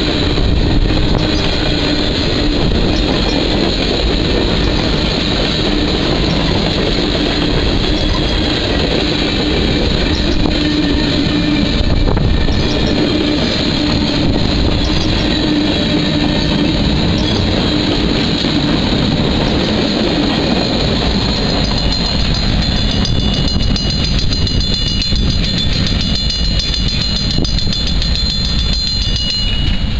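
Freight train cars rolling past at close range: steel wheels clicking over the rail joints with a steady heavy rumble. About twenty seconds in, the last car goes by and the rumble thins out.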